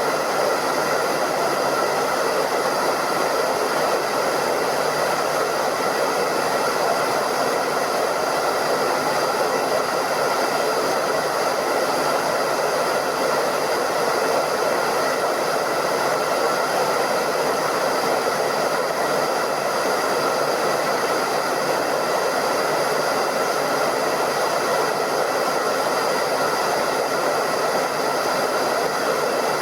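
Hairdryer running steadily: an even rush of blown air with a faint steady whine from its motor and fan.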